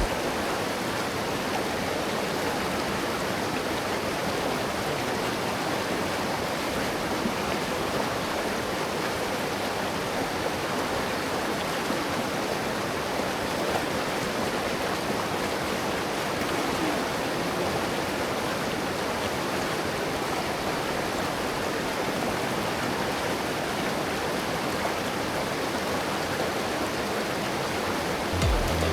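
River water rushing and splashing steadily, an even hiss of flowing water with no break.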